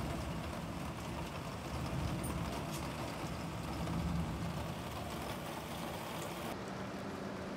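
Heavy rain falling steadily, with the tail of a thunder rumble dying away in the first second. About a second before the end the rain turns duller and a steady low hum comes in.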